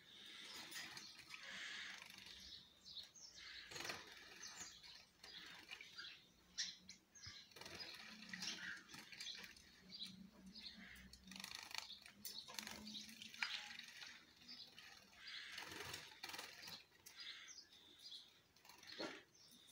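Caged Gouldian finches giving faint, frequent short chirps, mixed with small flutters and rustles.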